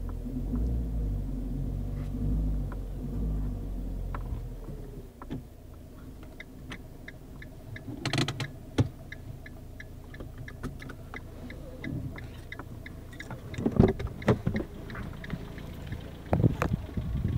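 Car engine running, heard from inside the cabin, dropping away about five seconds in. A regular light ticking, about three a second, follows. Loud knocks and rustles near the end come with the car door being opened.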